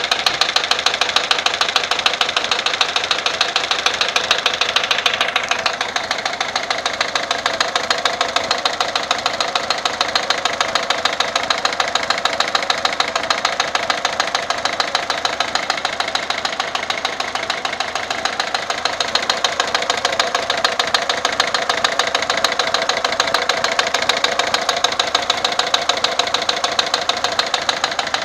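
Peugeot 407 1.6 HDi four-cylinder turbodiesel idling with a steady, rhythmic knocking clatter: the abnormal engine noise. Its sharpest high clatter eases a little about five seconds in.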